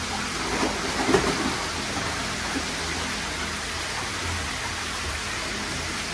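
Steady rushing of water in koi holding vats, with splashing about a second in as a koi is handled in the water.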